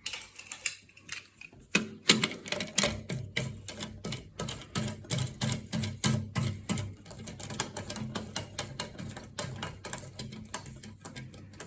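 Rapid, irregular plastic clicking and tapping as the flush valve's push-button fitting is handled and turned into place on the cistern lid.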